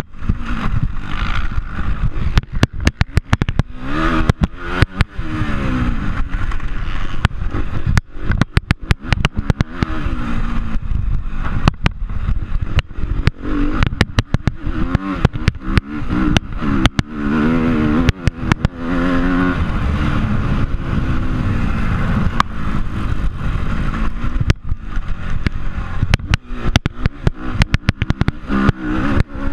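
Motocross bike engine heard from the rider's chest, revving up and dropping back again and again as it is ridden hard over a dirt track. Frequent sharp knocks and clatter run through it.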